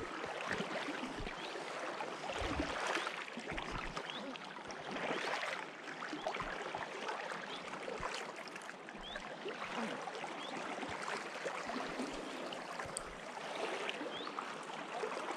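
Shallow river current rushing and rippling over stones, a steady hiss, with a few dull low thumps.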